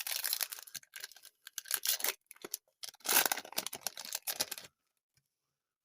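Trading card pack wrapper being torn open and crinkled: a run of crackling rips and rustles that stops abruptly about three quarters of the way through.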